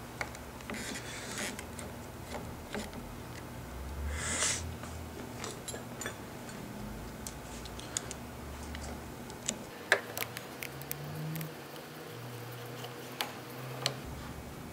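Scattered small clicks and taps of a hand driver and screws working on a Harley-Davidson handlebar switch housing, as the housing screws are put in, with a sharper click just before the middle, over a low steady hum.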